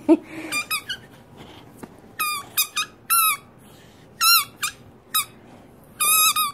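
A rubber squeaker ball squeaking as a dog chomps on it: short, high-pitched squeaks in little runs of one to three, about every second, with a short pause near the middle.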